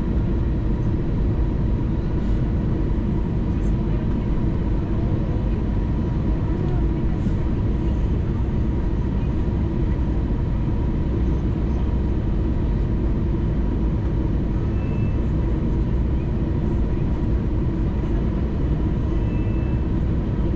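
Steady cabin noise inside an Airbus A320neo on approach: a low rumble of engines and airflow with a thin, unwavering whine above it.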